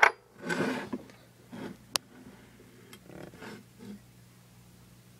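Handling noise of a cast-iron screw-key padlock: a short rustling scrape in the first second, one sharp click about two seconds in, then a few soft knocks.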